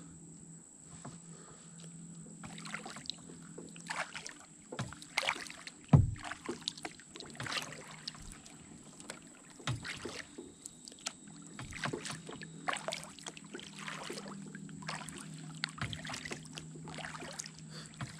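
Kayak paddle strokes dipping and splashing in calm river water, uneven and about one every second or so, with dripping between them. One sharp knock about six seconds in is the loudest sound.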